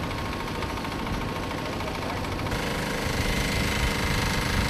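Engine-driven pressure-washer pump of a decontamination rig running steadily with a fast, even pulsing. About halfway through, a brighter hiss of water spray from the wand joins in.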